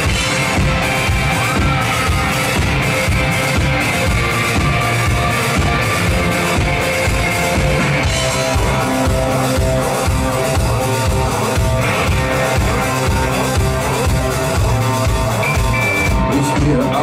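Rock band playing live, with electric guitars over a steady drum-kit beat of about three strokes a second, in an instrumental passage without singing.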